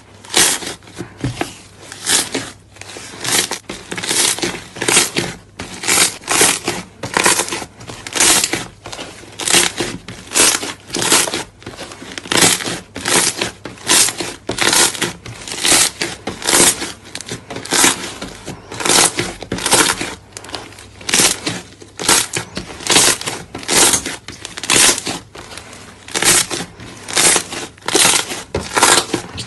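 Slime being squeezed and pressed by hand, giving a crackly, crinkling noise in quick regular strokes, about one to two a second.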